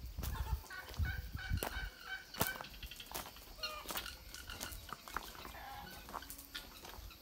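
Free-range chickens calling, a run of calls mostly between about one and four seconds in, with a few sharp clicks.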